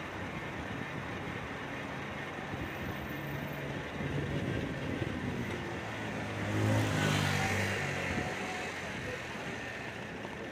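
A motor vehicle passes close by: its engine and tyres swell to a peak about two-thirds of the way through, then fade. Steady road and wind noise from the bike ride runs underneath.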